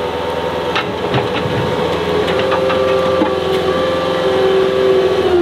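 Cat 236B skid steer's diesel engine running steadily under load with a droning whine, with a few knocks and scrapes as the steel bucket digs into the dirt.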